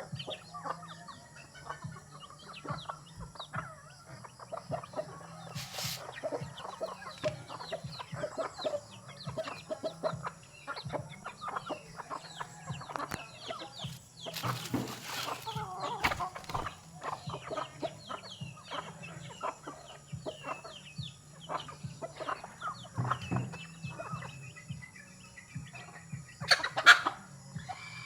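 A flock of chickens clucking and peeping while feeding, with many short clicks and taps. There are a few brief louder bursts of noise, the loudest near the end.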